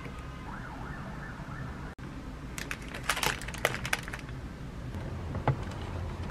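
A burst of light clicks and clatter about three seconds in, with one more click later, over a low steady hum. A faint rising and falling wail sounds in the first second or so.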